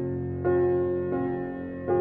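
Calm instrumental background music: sustained keyboard chords, with a new chord struck about every three-quarters of a second.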